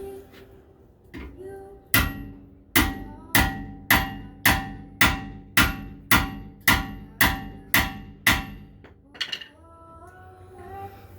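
A steel hammer striking a hand impact screwdriver about a dozen times in a steady rhythm, roughly two blows a second, each blow ringing. It is driving loose a brake rotor retaining screw on a 1992 Acura Integra's rear rotor.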